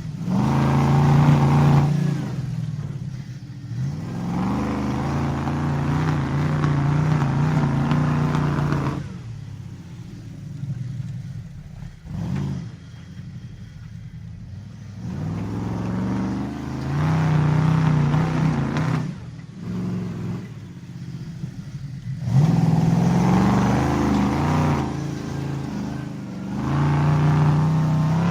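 Monster truck engine driving, its revs rising and falling several times. It eases off into quieter stretches in the middle, then surges back up again about three quarters of the way through.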